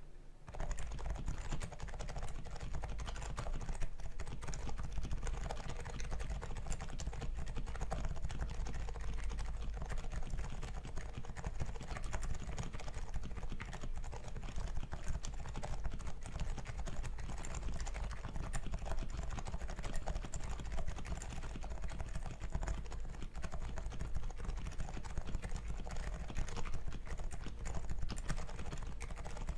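Continuous typing on a custom Noxary XRF keyboard with a polycarbonate case, a Realforce steel plate and Topre-style 45g switches with purple sliders lubed with 205g0. It is a steady stream of keystrokes starting about half a second in.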